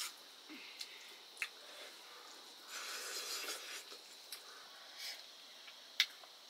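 Close eating sounds from a meal of rice and greens: a few short, sharp smacks and clicks, with a longer noisy stretch about three seconds in.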